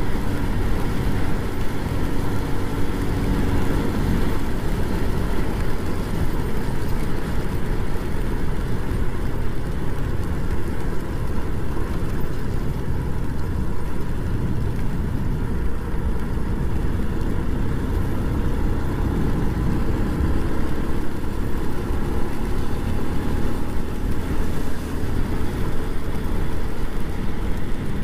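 Motorcycle riding along a rain-wet road: a steady mix of engine and wind noise, with no change in pace.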